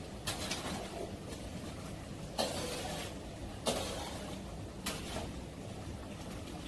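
Metal spatula scraping and clinking against a wok while stirring a coconut-milk curry: a handful of separate strokes, the loudest two about two and a half and three and a half seconds in, over a steady low hum.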